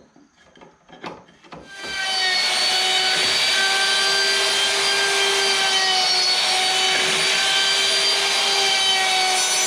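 A few light knocks, then about two seconds in a router fitted with a 1/4-inch-shank carbide dovetail bit starts up. It runs with a steady high whine while cutting dovetails in the drawer boards.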